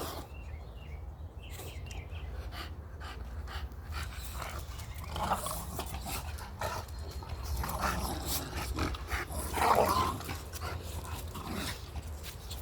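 Pet dogs playing, with many small knocks and scuffling sounds and several short vocal sounds from the dogs. The loudest comes about ten seconds in.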